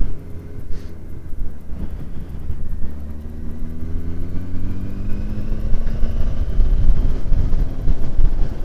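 Motorcycle engine pulling under acceleration, its pitch rising steadily for several seconds from about three seconds in, over a heavy low rumble of wind and road noise.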